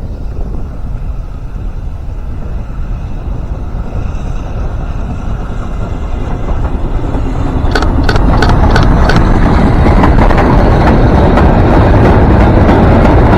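A train running on the heritage line, growing steadily louder as it draws close: a heavy, low rumble, with a quick run of sharp clicks from about eight seconds in.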